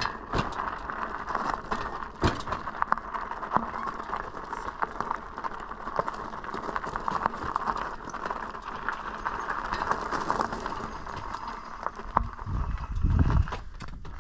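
Bicycle rolling over gravel and stone paving: a steady crunch of tyres on loose stones with frequent clicks and rattles. A low rumble comes in near the end.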